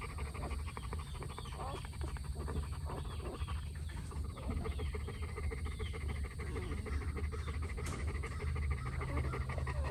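Newly whelped livestock guardian dog mother panting steadily and rapidly, with faint short high squeaks from her newborn puppies through it.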